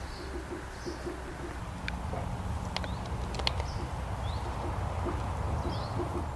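Woodland birds calling: a repeated low cooing phrase of short, evenly spaced notes near the start and again near the end, with short high chirps in between. Underneath is a low steady rumble, and a few sharp ticks come in the middle.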